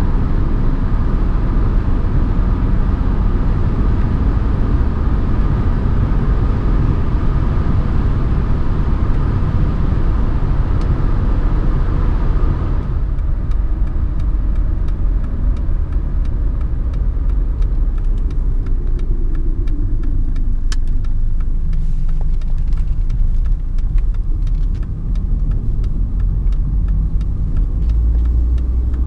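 Inside the cabin of a Mercedes 190D 2.5 Turbo (W201), its five-cylinder OM602 turbodiesel running with road noise while driving at speed. About 13 seconds in the sound changes abruptly to a quieter, deeper drone, and later the engine note falls away.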